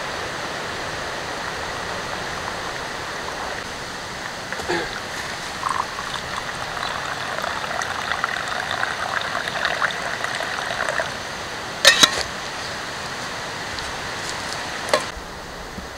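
Water poured in a steady stream into a cloth coffee filter, giving way after a few seconds to trickling and dripping through the cloth into a wooden bowl below. Two sharp knocks about twelve seconds in, and another near the end.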